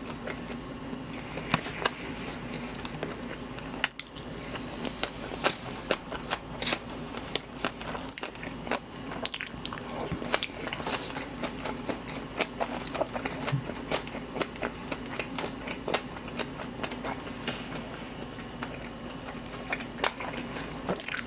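Close-miked mouth sounds of a person eating jokbal (braised pig's trotters) and side dishes: wet chewing, biting and lip smacks, many sharp irregular clicks. A low steady hum runs underneath.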